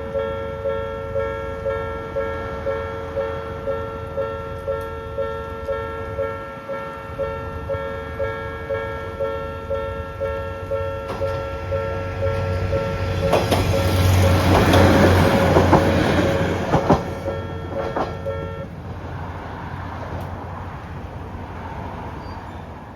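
Railway level-crossing bell with the old Odakyu-style electronic tone, ringing about two strokes a second. A diesel train rumbles through the crossing, loudest in the middle, with wheels knocking over rail joints. The bell stops a few seconds before the end while the train's sound fades away.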